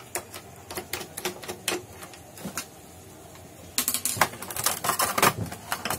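Plastic scanner housing parts clicking and rattling as the covers are worked loose and handled by hand: scattered clicks at first, a short lull, then a dense, louder run of clatter from about four seconds in.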